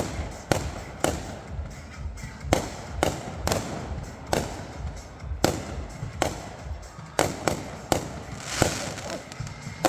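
Fireworks going off: a string of sharp bangs at uneven intervals, one or two a second, over a low rumble.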